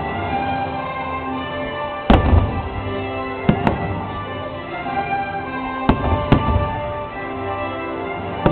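Fireworks bursting over steady show music. The loudest bang comes about two seconds in, followed by three sharper cracks, two of them close together, and another near the end.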